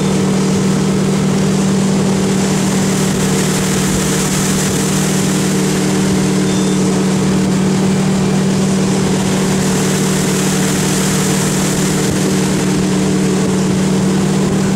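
Nautique ski boat's inboard engine running steadily at towing speed, a constant low drone, with rushing water and air over it.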